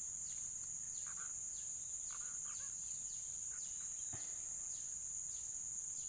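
Steady high-pitched drone of insects, with faint falling chirps repeating about twice a second. A single soft knock about four seconds in.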